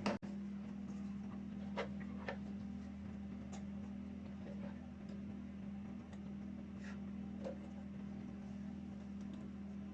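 Steady low hum of a running egg incubator, with a few faint, light clicks and taps scattered through it.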